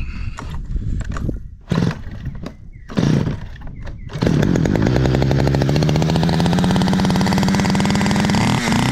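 Stihl 009L two-stroke chainsaw being pull-started: two brief bursts from the first pulls, then it catches a little after four seconds and runs steadily, its engine speed slowly climbing. Near the end the running turns into uneven surges.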